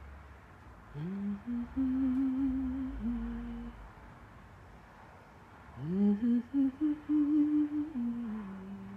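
A woman humming two short wordless phrases, each sliding up at the start and then holding a few stepped notes.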